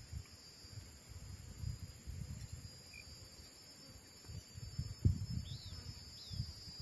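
Quiet outdoor ambience: a steady high insect drone, with two faint short bird chirps near the end, over irregular low rumbles and thumps and one sharper knock about five seconds in.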